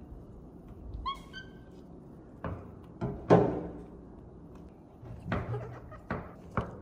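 A kitten gives one short high meow about a second in, followed by a series of knocks and thuds. The loudest knock comes just after three seconds and rings briefly.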